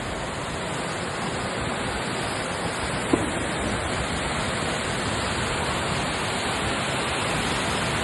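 Steady rushing of floodwater pouring through a city street during heavy rain, strong enough to carry wheelie bins along.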